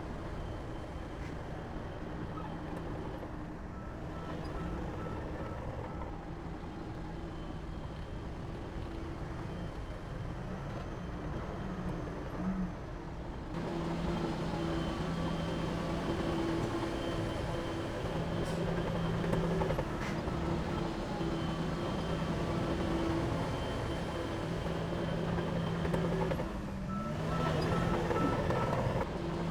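Heavy diesel earthmoving machinery running steadily, getting louder about 13 seconds in, with a reversing alarm beeping in short runs twice.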